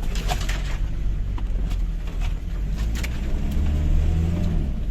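Toyota HiLux engine heard from inside the cab, working along a rough muddy track. Its pitch rises for a while about three seconds in. Several sharp knocks and rattles come from the vehicle over the bumps.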